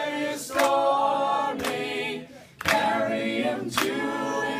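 Small a cappella group of men's voices and a woman's voice singing a sea shanty in close harmony, with a hand clap about once a second keeping time. The voices drop out briefly for a breath about halfway through.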